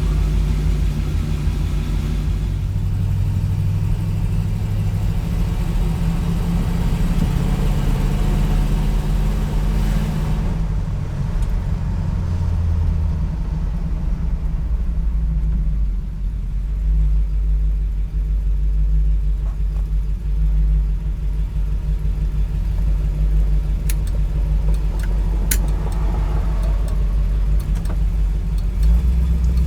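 Supercharged V8 of a 1964 Studebaker Avanti running as the car is driven, its engine note rising and falling with acceleration, on a freshly rebuilt Carter AFB carburetor. A few sharp clicks are heard near the end.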